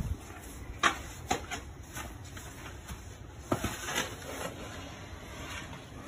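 Snow shovel scraping through snow on a driveway: a few short scrapes in the first two seconds, then a longer run of scraping about three and a half seconds in, over a steady low rumble.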